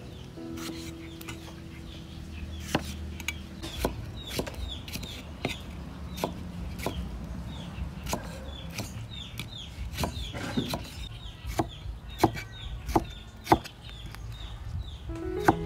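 Cleaver cutting tomatoes on a wooden chopping board: irregular sharp knocks of the blade on the wood, about one or two a second, loudest near the end. Birds chirp steadily behind it in short high falling notes.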